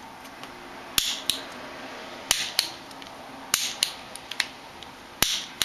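Sharp clicks from a barbecue lighter's piezoelectric igniter as the trigger is pressed again and again, each press a snap followed about a third of a second later by a softer click. These are test firings of the opened igniter, made to find the tiny spark that jumps between the crystal's copper cap and the case.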